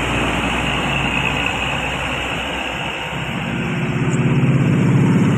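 Roadside traffic noise with a bus engine's low drone that grows louder over the last couple of seconds as it draws near, then cuts off suddenly.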